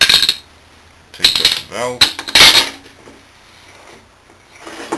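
Metal air-conditioning compressor parts clinking and clattering against each other and the metal workbench as they are handled, in several bursts over the first three seconds, the loudest about two and a half seconds in.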